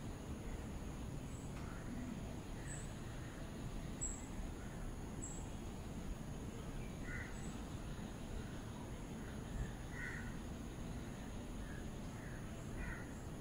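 Birds calling: short high chirps repeating about once a second, with a few lower calls near the middle and toward the end, over a low steady background rumble.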